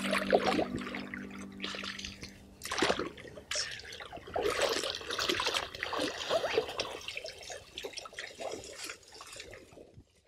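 Lake water splashing and sloshing around a person wading in chest waders, with hands sweeping through the shallows in uneven splashes. Background music fades out about three seconds in.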